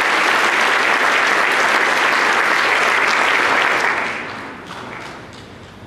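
Audience applauding, dense and steady, then dying away about four seconds in to a few scattered claps.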